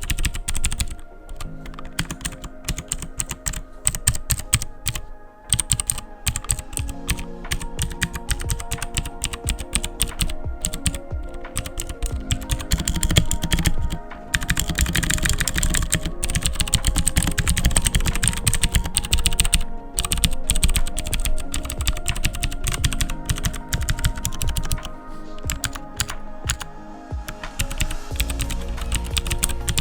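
Royal Kludge RK61 mechanical keyboard with brown switches and double-shot ABS keycaps being typed on quickly: a dense, continuous stream of key clacks, over background music.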